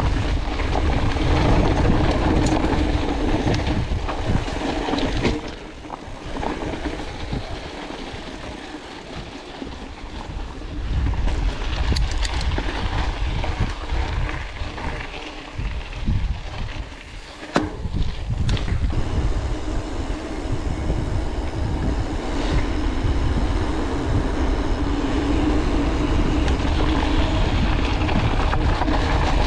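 Mountain bike rolling over a dirt and gravel trail: steady tyre rumble and rattling of the bike, with wind buffeting the camera microphone. The noise drops for a few seconds a quarter of the way in, and there is a sharp knock a little past halfway.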